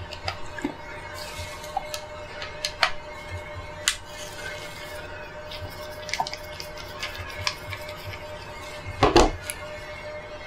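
Small scattered metal clicks and ticks of a torque screwdriver's bit turning a steel screw out of the optic's mount base, with a louder clatter about nine seconds in.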